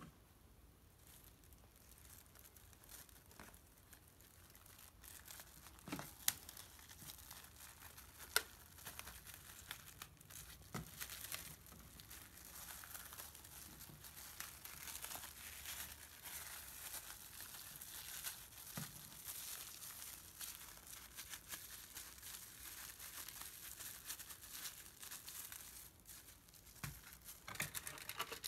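Plastic cling wrap crinkling and rustling as it is pulled and pressed tightly around a burger, with two sharp clicks about six and eight seconds in.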